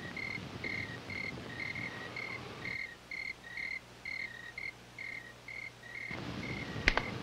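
Crickets chirping in a steady rhythm, about two to three short chirps a second, over the low hiss of an old film soundtrack, with a single sharp click near the end.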